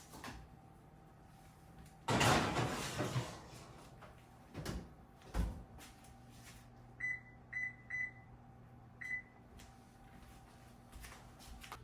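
Four short, high electronic beeps like an appliance keypad being pressed, coming about two-thirds of the way in. Before them there is a brief rush of noise and a couple of knocks, over a steady low hum.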